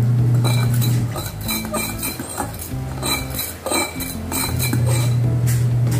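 A utensil clinking and scraping against a bowl in many small, irregular clicks as a child eats from it, over a low steady hum.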